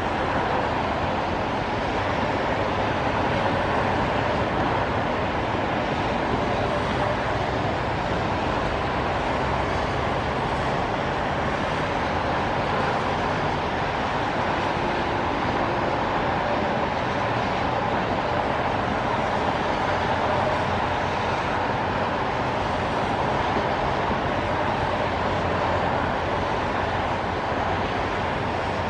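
Steady traffic noise from a rain-wet highway: tyres hissing on the wet road, mixed with rain, as one even hiss with no breaks.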